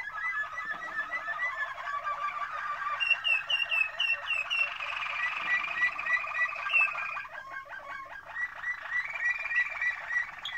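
Domestic canaries singing: a continuous song of rolling trills and quick runs of repeated chirping notes, briefly softer about seven and a half seconds in.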